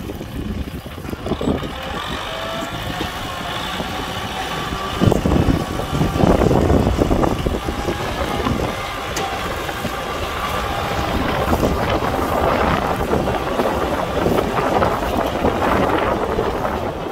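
Kubota tractor's diesel engine running while plowing, with wind buffeting the microphone and growing louder about five seconds in.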